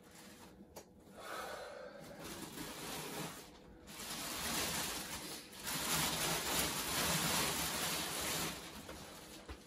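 Clear plastic packaging wrap rustling and crinkling as it is pulled out of a shipping box, in a few stretches, loudest in the second half.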